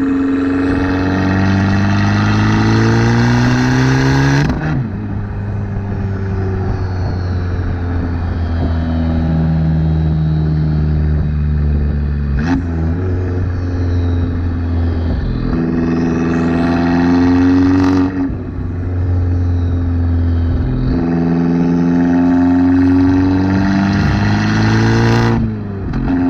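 Fiat 595 Competizione's turbocharged 1.4-litre four-cylinder, breathing through a Record Monza exhaust with downpipe and 200-cell catalyst, pulling hard through the gears. The engine note climbs steadily, then drops sharply at each of four gear changes.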